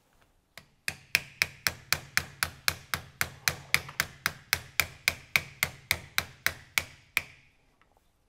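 Steady tapping, about four sharp knocks a second for some six seconds, each a metallic tick over a low thump: the hex key in a compound bow's bolt-in cam axle being tapped to work the axle loose. The axle is harder to free than it should be, which the owner puts down to the limbs not being lined up evenly in the bow press.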